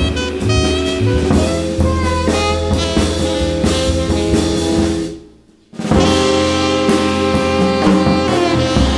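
A jazz sextet playing: alto saxophone over drum kit, bass, keys and electric archtop guitar. About five seconds in the whole band stops briefly, then comes back in together.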